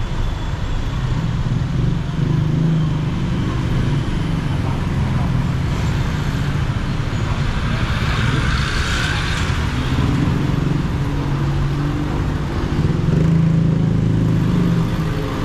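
Street traffic: motor vehicle engines running steadily in a low hum, with a brief rush of hiss about eight seconds in.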